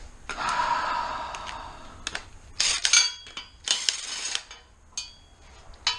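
Metal hand tools clanking and rattling against each other: a scraping rattle, then several sharp clinks that ring briefly, like tools being sorted through.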